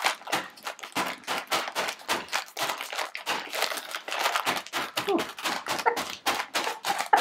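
Crinkling plastic snack package with the dry ramen-style noodles crackling inside as it is handled and crushed: a dense, irregular run of crackles.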